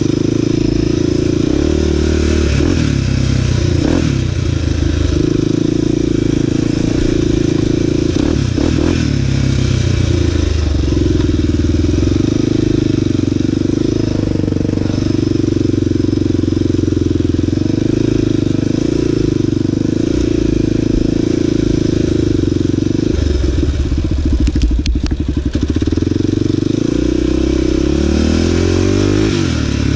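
Honda 400EX sport quad's engine running under throttle on a muddy trail ride, steady and loud, with the revs rising and falling several times as the throttle is worked, most often near the end.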